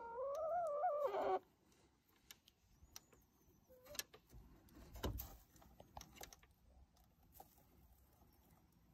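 A hen in the coop gives one wavering call about a second and a half long. Then come faint scattered clicks and knocks as the small metal latch on the wooden coop door is fiddled with.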